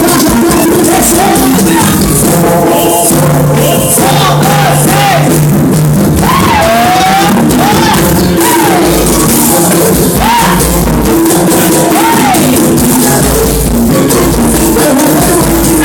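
Loud music with a singing voice and shaker-like percussion, played without a break.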